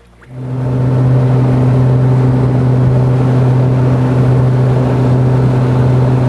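Bass boat's outboard motor running steadily at speed, a constant low hum over a rush of wind and water; it comes up over the first second and then holds level.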